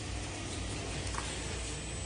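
Steady low hum with faint handling noises of hands working at wires, including a small tick about a second in.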